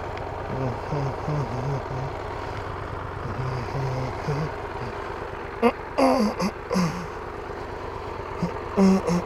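Triumph Tiger 1200 GT Pro's three-cylinder engine idling steadily while the bike stands at the roadside. A man's voice comes in briefly over it about six seconds in and again near the end.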